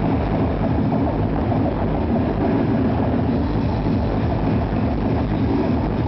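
Very loud electronic dance music from a club sound system, overloading the recording into a dense, distorted wash with heavy bass and no breaks.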